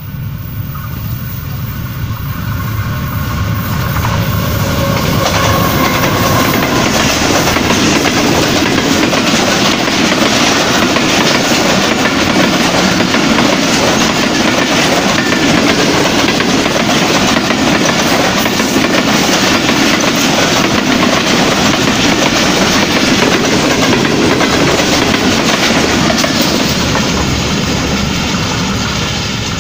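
Pakistan Railways passenger express passing at speed. A GEU40 diesel-electric locomotive's engine grows louder over the first few seconds as it approaches and goes by. Then a long rake of coaches rattles past, with loud, steady wheel clatter over the rail joints, which fades near the end as the train draws away.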